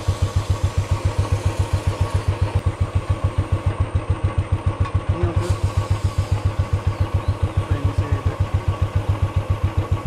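Royal Enfield Bullet's single-cylinder engine idling steadily in first gear with the rear wheel turning on the stand, an even beat of about five to six firing pulses a second.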